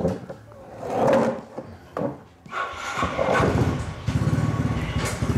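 Bursts of rustling noise, then a small engine running with a rapid, even pulse through the second half.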